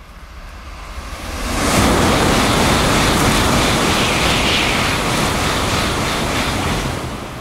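Shinkansen bullet train passing through a station at very high speed without stopping. The rushing noise builds over the first couple of seconds, holds loud and steady for about five seconds as the cars sweep by, then begins to fade near the end.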